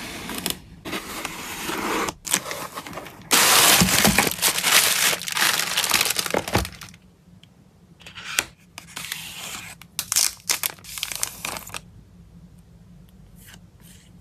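Packaging crinkling and tearing as hands handle and open it. The rustling is loudest for a few seconds in the middle, then breaks into short crinkles and taps, and dies down to faint ticks near the end.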